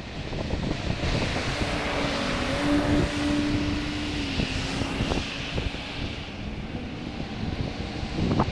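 An aircraft engine drone passing by, with a steady hum that swells and fades over a few seconds, and wind rumbling on the microphone throughout.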